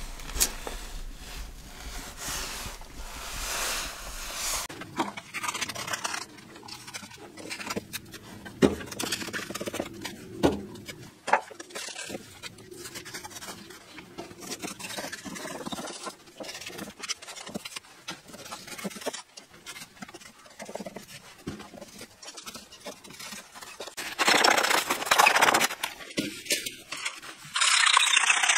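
A knife cutting and scraping expanding spray foam around a door frame: scattered scrapes and knocks, then two louder stretches of rasping cutting near the end.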